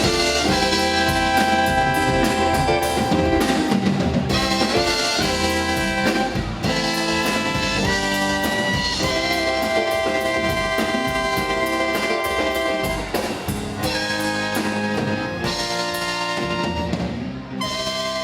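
Band music: brass horns playing held chords over a drum kit.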